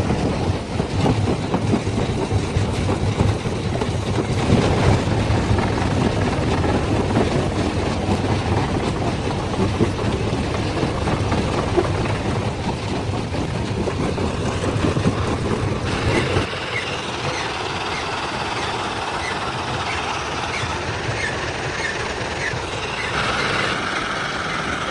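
Stone-crushing machinery running with a dense, steady rumble and rattle. About 16 seconds in the sound changes abruptly to a lighter, higher rattle with much less rumble.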